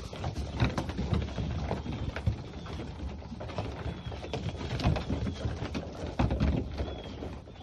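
Goat kids' hooves knocking and thumping on wooden boxes and boards as the herd jumps on and off them. The knocks come irregularly, with a few faint high chirps above them.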